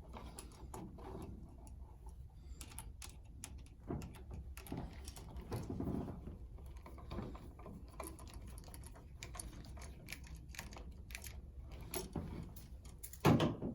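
Small irregular clicks, ticks and scrapes of a screwdriver and copper wire working at the terminal screws of a double toggle wall switch, as a wire is hooked around a screw and tightened. A louder short knock near the end.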